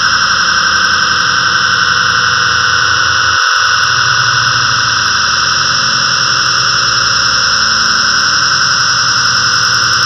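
Synthesized storm ambience from GarageBand's Thunderous Ambience instrument with the Storm pad selected: a steady, loud wash of noise. Its low rumble drops out briefly about three and a half seconds in.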